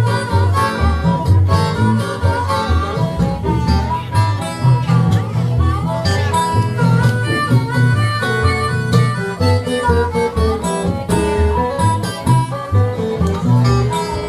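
Acoustic guitar playing an instrumental break of a Delta blues song: picked melody notes over a steady, pulsing bass.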